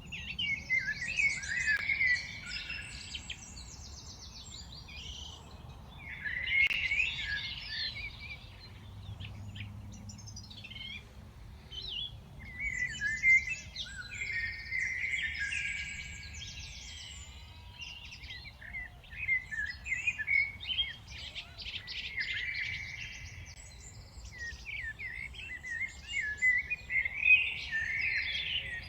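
Many small birds singing and chirping together in a dense chorus of overlapping trills and chirps, coming in several bouts with short lulls between.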